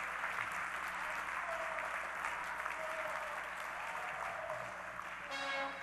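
An audience applauding steadily. Near the end, music starts up over the clapping.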